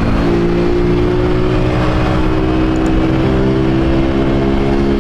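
Honda Titan 150's carbureted single-cylinder four-stroke engine running under way at a nearly steady pitch, its intake snorkel removed for a louder intake note.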